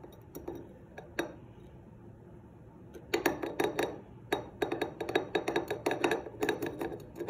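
Glass clinking: a glass measuring cup knocking against the rim of a glass jar in quick, uneven taps as the last of the bicarb soda is shaken out. A few single clicks come first, and a fast run of taps starts about three seconds in.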